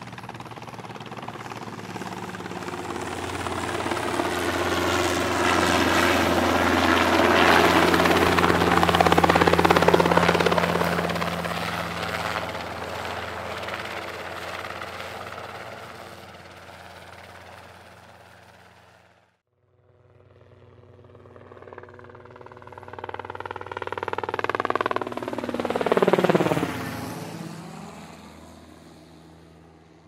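Hydroplane passing by twice, its engine sound swelling to a peak and fading away. The first pass cuts off abruptly about two-thirds of the way in. A second, quicker pass builds to a sharp peak near the end, its engine pitch falling as it goes by.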